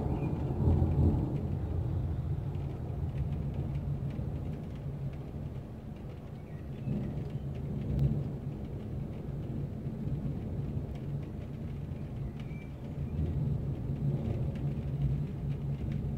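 Thunder rumbling in a long, low roll that swells about a second in and again about halfway through, with rain falling.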